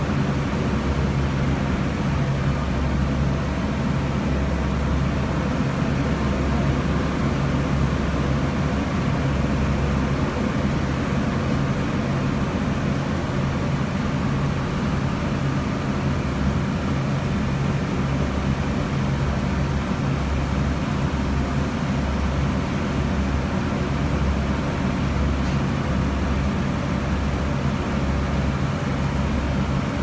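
Sightseeing cruise boat's engine droning steadily, a deep, even hum with a rushing haze over it, heard from on board.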